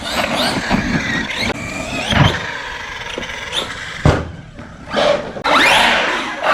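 Redcat Kaiju EXT brushless RC truck running on Arrma dBoots Backflips tyres, its motor whine rising and falling with the throttle. There are two sharp thumps, about two and four seconds in, and a loud rough rushing noise from about five and a half seconds in.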